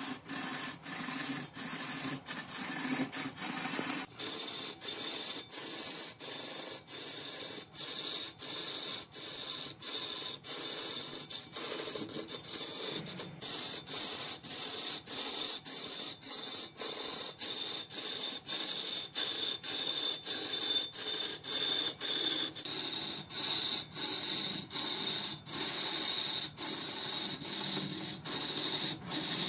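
Wood lathe turning tool cutting into a spinning wood blank with a steady hissing shave, broken by short regular gaps about twice a second.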